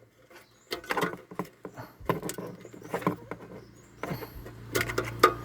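Scattered light clicks, taps and scrapes of small objects being handled, with a low steady hum coming in near the end.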